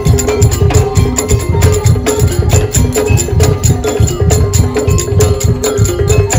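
Daul Madura percussion music: dense, fast clicking of bamboo slit drums over heavy, rhythmic bass drum strokes, with a held melodic line above.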